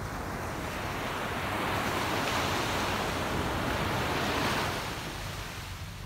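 Small waves breaking on a sandy beach and washing up the shore: the rush of surf swells about a second in, stays strongest through the middle, and fades near the end.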